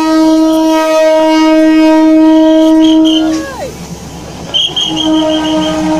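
Train horn on the SRT railcar sounding one long steady blast of about three seconds as the train comes through the market, then sounding again about five seconds in. A quick run of high ringing chimes comes between the blasts, over the low rumble of the train passing close.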